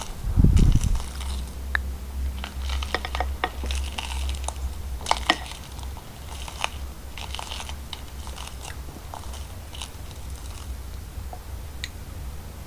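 Slime being squeezed and worked by hand, giving scattered crisp crackles and clicks, with a loud low thump about half a second in, over a steady low hum.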